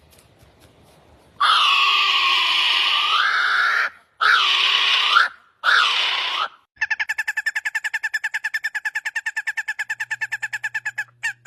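Bird calls: three long, loud calls that dip and rise in pitch, followed by a fast, even trill of about ten notes a second.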